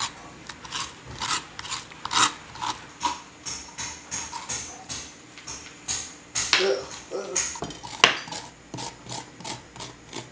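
A metal spoon scraping the seeds and stringy pulp out of a halved raw spaghetti squash, in short repeated strokes, a few each second.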